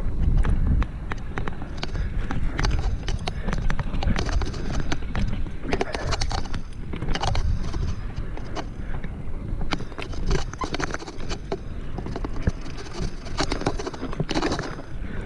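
Mountain bike clattering down a rough dirt trail: irregular sharp rattles and knocks from the chain and frame over bumps and ruts, over a steady low rumble of wind on the microphone.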